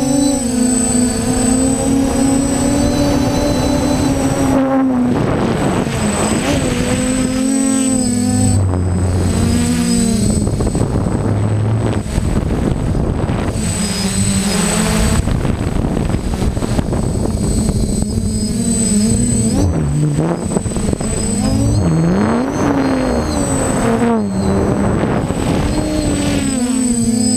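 A DJI F550 hexacopter's six motors and propellers whirring, recorded from on board during fast flight. Their pitch swoops up and down again and again as the throttle changes, over a steady high-pitched whine.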